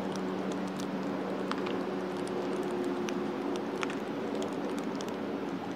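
Steady low mechanical hum, like a distant engine or machinery, with a few faint ticks scattered through it.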